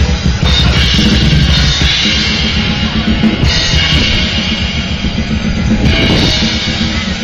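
Loud drum-kit music: a driving bass-drum beat that does not let up, with cymbal washes swelling in a few times.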